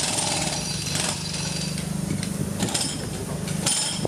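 Construction noise from tramway track works: a pneumatic breaker hammering in rapid strokes for about the first second, over a steady low machinery hum, then scattered knocks.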